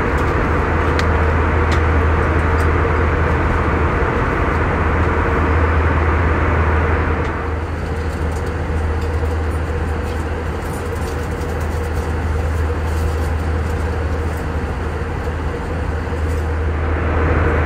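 Airbus A321 cabin noise in flight: a steady rush of engine and airflow noise over a strong low hum. The higher hiss drops back about seven seconds in and comes up again near the end.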